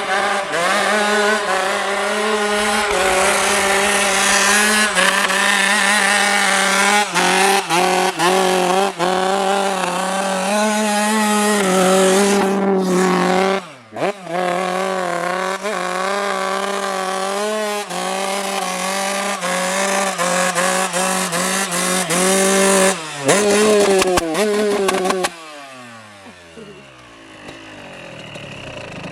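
Off-road motorcycle engines running hard at high revs, with a buzzing, wavering pitch. About halfway through the sound briefly drops off and comes back, and near the end it gets much quieter and falls in pitch as a bike moves away.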